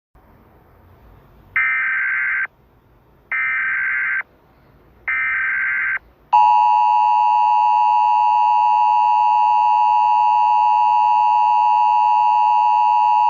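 Emergency Alert System alert tones: three short bursts of SAME header data, each about a second long, then the steady two-tone EAS attention signal starting about six seconds in.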